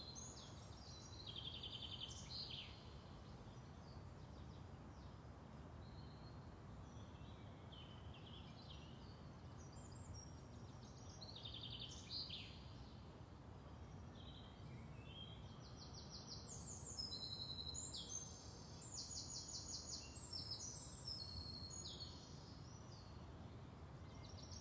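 Faint wild birdsong: scattered high chirps and short trills, with a longer run of rapid repeated notes in the second half, over a low steady background rumble.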